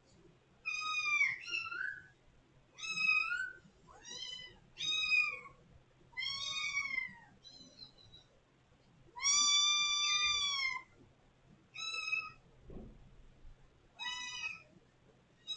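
A kitten meowing loudly over and over, about ten calls with short gaps, each rising then falling in pitch, the longest near the middle. These are demanding calls at a closed door, to be let out.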